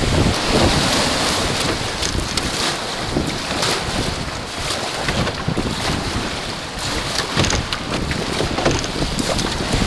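Waves and water splashing around an open canoe being paddled hard through surf, with irregular sharp splashes over heavy wind noise on the microphone.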